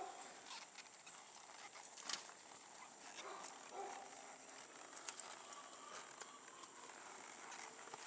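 Horse walking on soft arena sand with faint, irregular hoof footfalls. There is a sharp knock about two seconds in and a couple of short pitched yelps near the middle.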